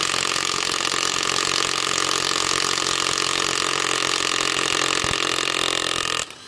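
Cordless half-inch-drive impact wrench, a Makita-battery clone, hammering steadily in reverse on a lug nut torqued to 140 foot-pounds, then cutting off suddenly near the end once the nut has come loose. It takes a long run of impacts to break the nut free, harder work than its roughly 500 foot-pound rating would suggest.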